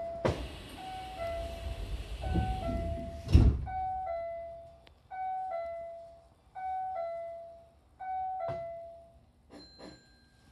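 Hankyu train doors sliding shut with a rush of noise that ends in a loud thump about three and a half seconds in. Meanwhile the door chime sounds a high-low two-note ding-dong about every one and a half seconds, some six times, and then stops. A second, lighter clunk comes just before the chime ends.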